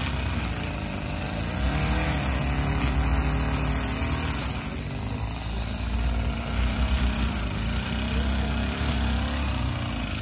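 Small-engine string trimmer running steadily while cutting grass, its level swelling and easing a little as it works.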